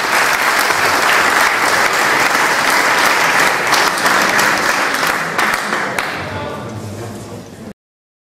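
Audience applauding, the clapping thinning out over the last couple of seconds and then cutting off abruptly near the end.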